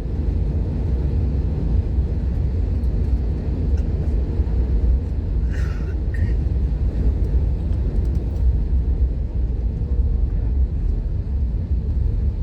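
Steady low rumble of an airliner cabin on the ground, with engines and air conditioning running while the aircraft taxis or holds before takeoff. A brief faint higher-pitched sound comes a little past the middle.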